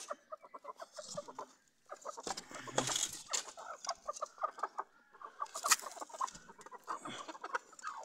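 Aseel chickens clucking in quick runs of short, rapidly repeated notes, with a couple of sharp knocks about three and six seconds in.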